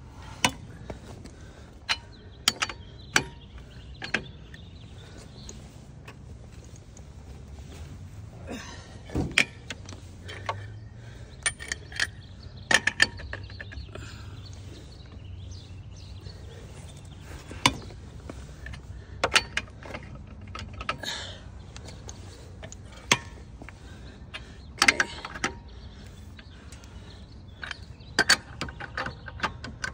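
Steel lug wrench on a car wheel's lug nuts, clinking and knocking irregularly as it is fitted over the nuts and turned to loosen them.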